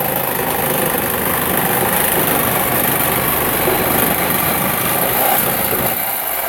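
Corded reciprocating saw cutting through a steel exhaust pipe, running steadily at full speed with a dense rasping of blade on metal. The blade is going dull.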